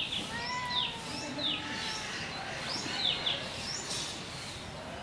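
Birds chirping in the background: short, high chirps that sweep downward in pitch, repeating about once or twice a second over a steady outdoor hiss.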